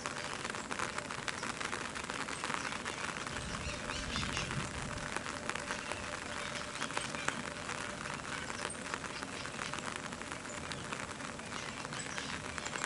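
Steady rain falling on a lake: a constant fine ticking of many small drops on the water and the bank.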